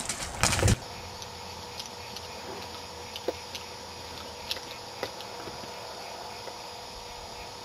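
A horse's hooves crunching on river gravel and splashing in shallow water, cutting off abruptly under a second in. After that, only a steady low hiss with a faint hum and a few scattered faint ticks.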